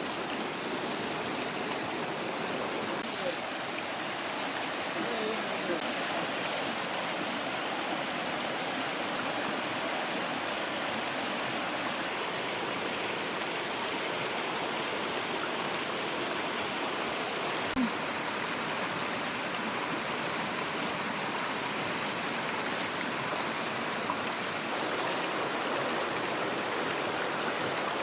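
Steady rush of river water flowing over a small waterfall, with one brief click about eighteen seconds in.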